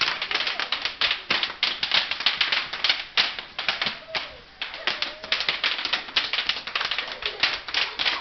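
Bubble wrap being popped by hand: a rapid, irregular run of sharp pops and crackles, several a second, with a short lull about four seconds in.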